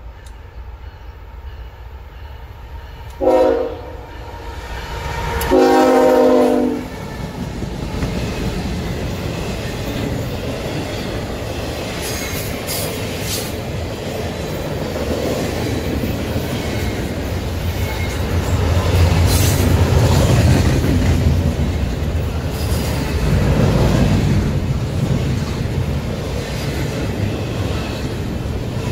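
Approaching freight locomotive sounds its horn twice, a short blast and then a longer one about two seconds later. Then the locomotive and a long double-stack intermodal train roll past, with a steady rumble and wheels clicking over the rail joints.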